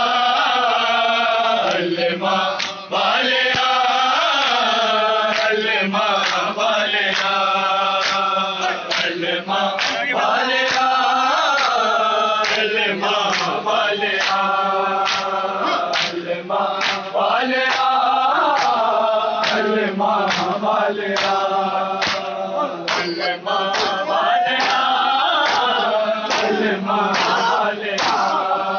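A crowd of men chanting a noha (Shia mourning elegy) in unison, with sharp rhythmic slaps of matam, hands striking chests, keeping the beat.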